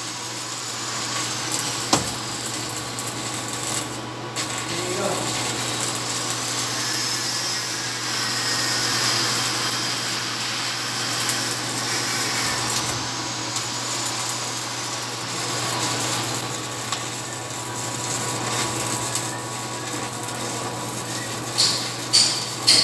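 Stick (SMAW) welding arc burning steadily as a coated electrode is run along the joint, making a continuous crackling hiss over a faint steady low hum. A few sharp pops come near the end.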